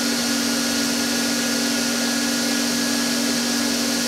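RTI Vortex 4200 Memjet wide-format printer running with a steady mechanical hum and whir during its automatic print-head calibration.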